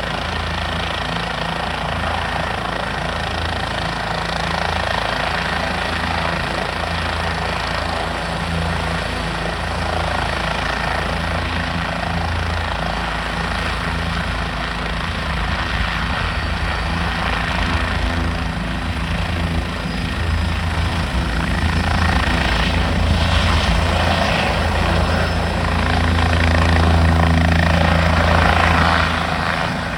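Helicopter running close by, a steady rotor beat under engine noise. It grows louder in the last third and falls off shortly before the end.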